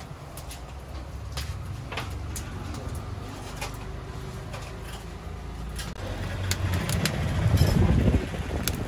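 Wood fire under a stone griddle crackling, with scattered sharp pops, over a steady low rumble. The rumble grows louder in the last few seconds.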